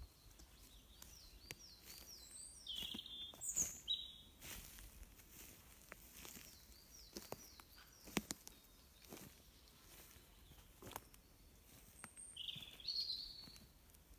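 Wild birds calling in woodland: runs of short, high repeated chirps and two louder calls, one about three seconds in and one near the end. A few sharp clicks are scattered through.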